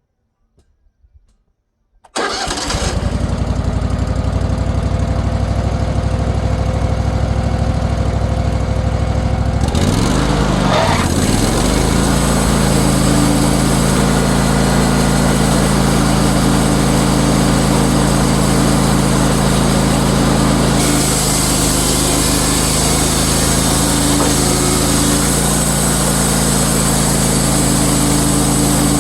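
Wood-Mizer sawmill's engine starting abruptly about two seconds in and running steadily; about ten seconds in its pitch dips briefly and recovers, and later a brighter hiss joins the running engine.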